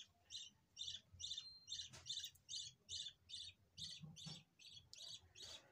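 A small bird chirping over and over, short high chirps at about three a second, kept up evenly throughout.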